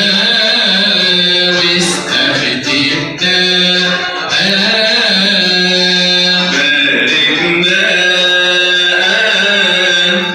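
Men singing an Arabic church hymn into microphones through a sound system, in long held notes with wavering ornamented turns, with short breaks for breath about two and three seconds in.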